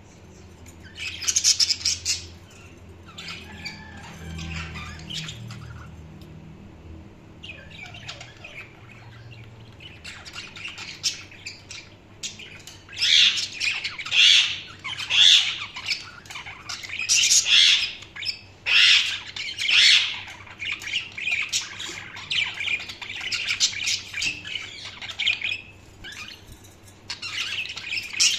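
Budgerigars chirping and squawking: a loud burst about a second in, softer chatter for the next several seconds, then a louder run of repeated squawks roughly once a second from about halfway through.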